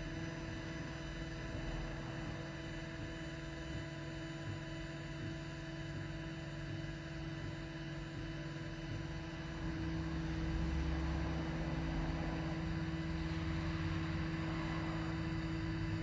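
A CNC laser machine running: a steady mechanical hum with several constant whining tones over a hiss, a little louder from about ten seconds in.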